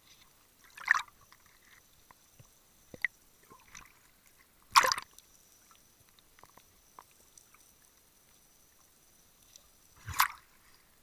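Underwater water and bubble noise picked up by the camera below the surface: faint scattered clicks, broken by three short loud rushes of water noise, about a second in, near the middle and near the end.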